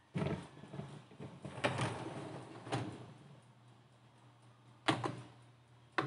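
Wire dish racks of a tabletop dishwasher being handled: four sharp metal clanks with short rattles as the racks shift and knock against the tub.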